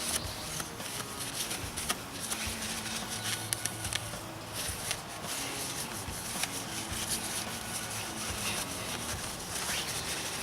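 A cloth rubbing and scraping on a motorcycle engine cover with scattered small clicks, as excess gasket sealant is wiped off.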